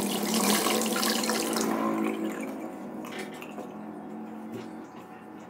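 Kitchen tap running water into the sink, shut off about two seconds in, followed by a few light clicks.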